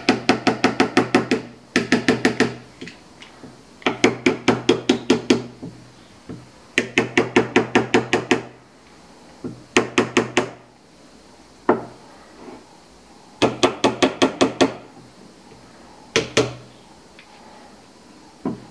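Small hammer tapping a knife's wooden handle scales down over their steel pins and lanyard tube, in quick runs of light, slightly ringing taps, about eight a second. The runs last one to two seconds, with short pauses between, and a few single taps near the end.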